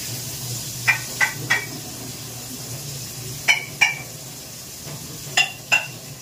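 A metal utensil clinks against a metal pot or bowl in quick short groups: three clinks, then two, then two. A steady hiss and low hum run beneath them.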